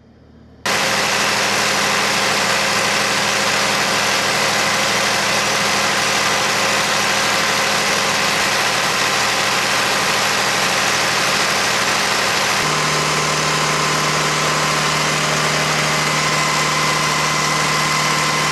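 An engine running steadily, starting abruptly about half a second in; about thirteen seconds in, a deeper, stronger hum joins it and holds.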